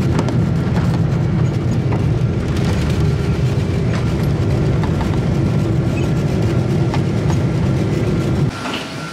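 Jet airliner's landing roll heard from inside the cabin: a loud, steady rumble of engines and wheels on the runway. It cuts off abruptly near the end.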